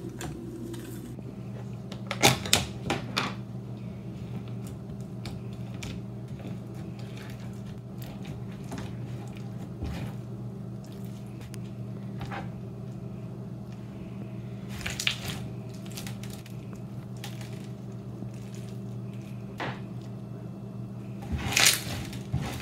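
Clear-glue slime packed with slushy beads being squeezed and poked by hand, giving short crunchy, crackling bursts: a few about two seconds in, one around the middle, and a longer run near the end. A steady low hum runs underneath.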